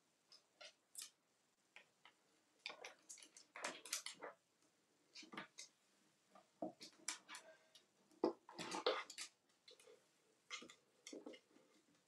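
An African grey parrot scrambling down into a drawer of toys: irregular scratching, rustling and light clattering of plastic toys, with the loudest knocks a little past the middle.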